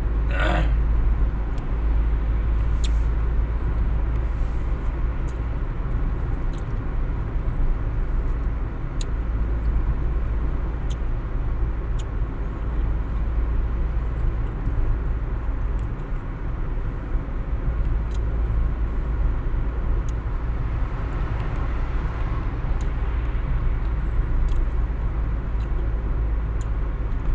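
Steady road and engine noise heard inside a moving car's cabin: an even, deep rumble of tyres and engine with a broad hiss above it and a few faint scattered clicks.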